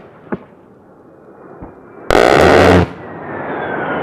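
A-10's 30 mm GAU-8 Avenger seven-barrel rotary cannon firing one loud burst of just under a second, about two seconds in, after two faint pops. The aircraft's turbofan engines then run on with a rushing noise and a slowly falling whine as it passes.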